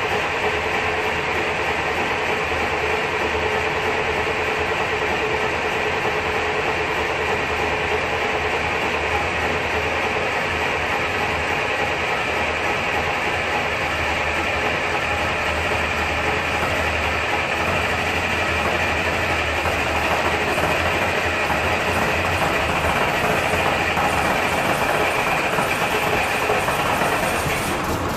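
Leyland National single-decker bus's diesel engine running steadily just after a cold start, smoking heavily. It gets slightly louder about twenty seconds in.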